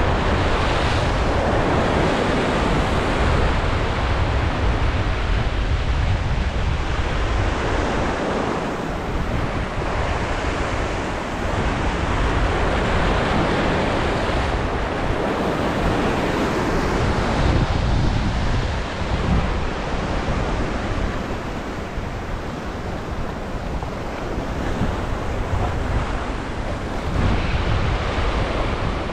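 Ocean surf surging and washing over the rocks at the water's edge, swelling and easing over several seconds, with wind buffeting the microphone.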